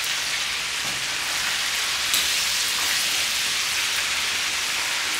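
Chicken drumsticks deep-frying in a wok of oil on high heat during their second fry: a steady, dense sizzle and crackle of the bubbling oil, with a single light click about two seconds in.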